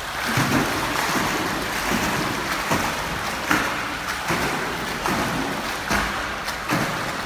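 Pool water splashing from a swimmer's dolphin kicks with a kickboard: a steady churn of splashing with a surge on each kick, a little more than once a second.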